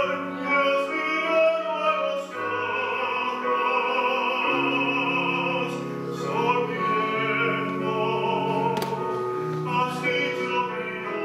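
Communion hymn: a singer in a classical, operatic style holding long notes with vibrato over sustained instrumental accompaniment.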